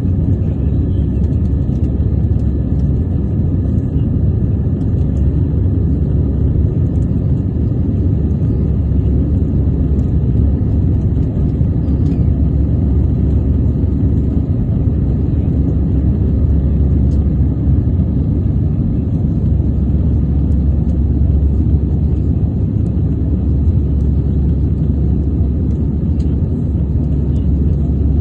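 Airbus A320 airliner engines during takeoff: a steady, loud, low rumble with faint, even whining tones above it.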